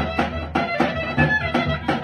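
Bulgarian folk band playing a lively dance tune: clarinet leading over accordion, with a tapan bass drum beating about four strokes a second.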